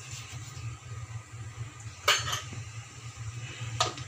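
A steel spoon knocking against a kadai twice, about two seconds in and again near the end, each a short metallic clink, over a steady low hum.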